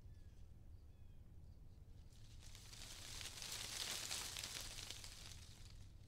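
Faint outdoor nature ambience: a gust of wind rustling through leaves swells up about two seconds in and fades away over about three seconds. Under it there is a steady low rumble, with a few faint short bird chirps in the first second or two.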